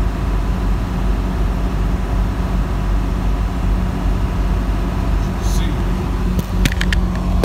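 Steady engine and road noise heard inside a semi-truck cab cruising on a wet highway, a constant low drone under tyre hiss. Several quick clicks near the end.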